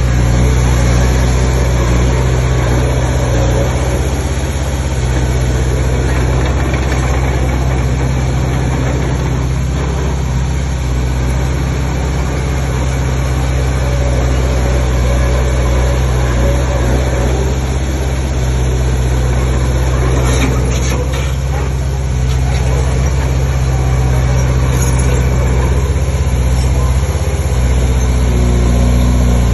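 Heavy earthmoving machine's diesel engine running steadily, with a brief cluster of rattles about two-thirds of the way in.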